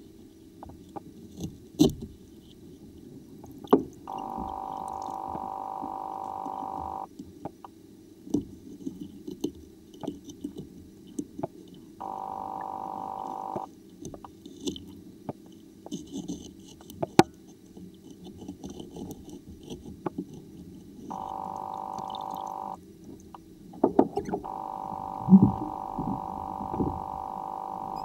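Muffled knocks and thumps from sneakers being handled in water, over a low rumble. A steady hum cuts in and out four times, and the loudest knocks come near the end.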